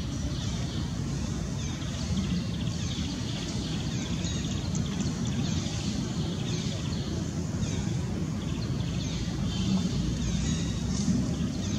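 Outdoor ambience: a steady low rumble with many short, high, falling chirps repeating about once or twice a second.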